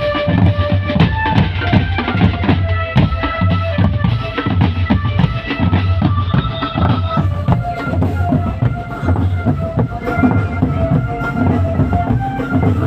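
Loud music from a parade sound system: a drum-kit beat with heavy bass and a melody over it.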